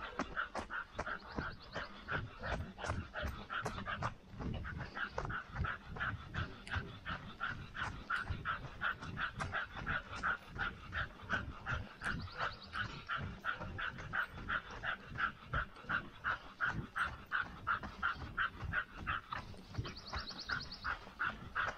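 A dog panting quickly and evenly, about three pants a second, over regular running footsteps.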